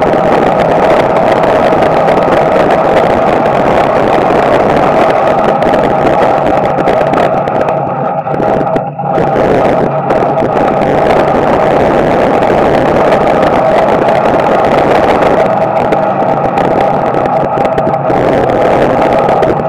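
Small-block Chevy V8 of a dirt-track street stock race car running hard under racing load, heard from inside the cockpit. The engine note drops briefly about halfway through, then comes back up.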